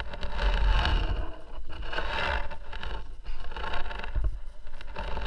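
Irregular scraping and rustling of clothing and climbing harness rubbing against a body-worn camera, over a low rumble.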